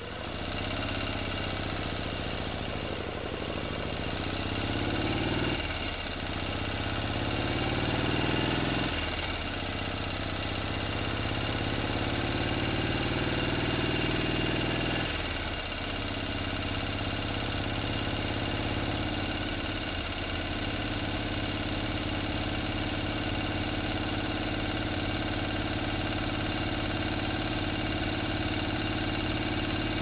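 A motor engine running: its pitch climbs three times, dropping abruptly between climbs, and it then runs at a steady speed for the second half.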